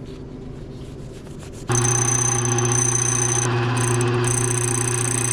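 Key-cutting machine starting up about a second and a half in and running steadily, its motor humming and its cutter whining high as it cuts a new key blade.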